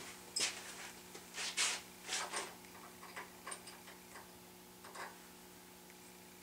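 Small adjustable wrench clicking and tapping against the steel feed handles and hub of a drill press as the handles are tightened: a run of irregular light metallic clicks, mostly in the first few seconds.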